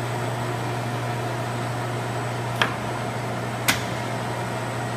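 A 1964 Landis LCHH plain hydraulic cylindrical grinder running under power without grinding, its motors and hydraulic pump giving a steady low hum. Two sharp clicks about a second apart past the middle.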